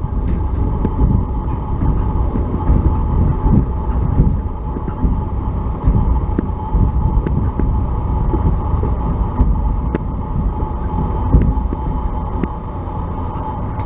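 Steam-hauled narrow-gauge park train heard from an open carriage while running: a steady rumble and rattle of the wheels and carriages on the track, with scattered light clicks.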